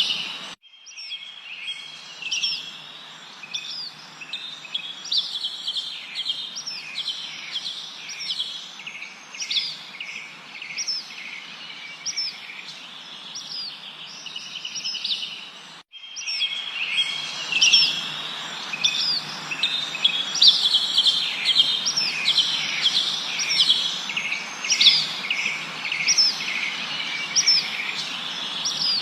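Many songbirds chirping and trilling densely, with quick repeated falling notes over a steady background hiss. The sound cuts out briefly about half a second in and again about midway, then returns louder.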